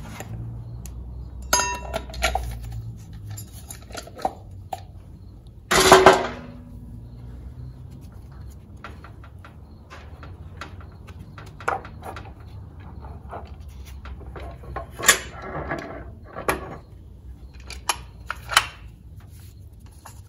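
Metal transmission parts clinking and clanking as planetary gear pieces and thrust washers are handled and pulled out of the aluminium case of a Chrysler A-904 automatic transmission. Scattered light knocks, with one loud ringing clank about six seconds in.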